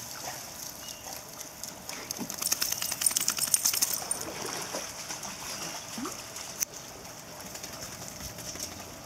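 Wet chocolate Labrador retriever shaking the pool water off its coat: a burst of rapid flapping and spraying about two seconds in, lasting about two seconds, over a steady high hiss, with a single sharp click later on.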